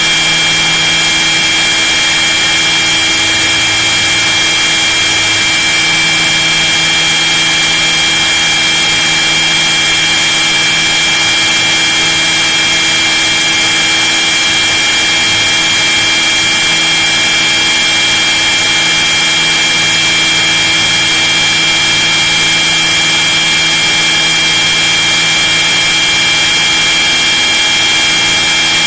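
Radio-controlled scale model helicopter running, heard from inside its own fuselage: a loud, steady high-pitched whine from its drive, with a lower hum beneath.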